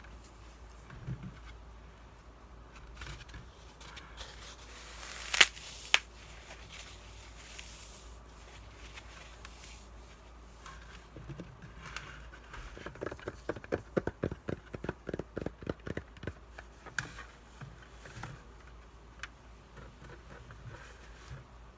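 Close-miked ASMR sounds of floral foam being handled: scattered soft crackles and scrapes, two sharp clicks about five seconds in, then a quick run of fingertip taps, around five a second, for about three seconds past the middle.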